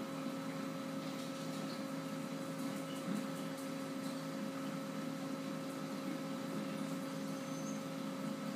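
Steady hum of aquarium equipment, several held tones over an even hiss, unchanging throughout.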